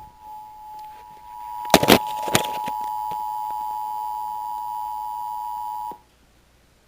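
Emergency Alert System two-tone attention signal (two steady tones near 853 and 960 Hz played together) from a radio broadcast. It gets louder a little over a second in, with a couple of loud clicks around two seconds, and cuts off suddenly about six seconds in, just before the spoken warning.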